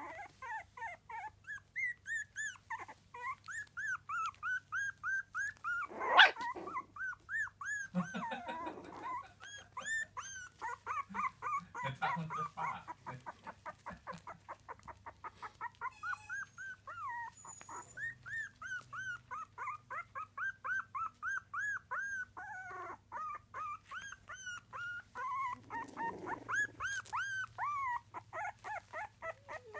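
A litter of three-week-old miniature dachshund puppies whimpering and squeaking in a steady stream of short, high calls, several a second. A sharp knock stands out about six seconds in.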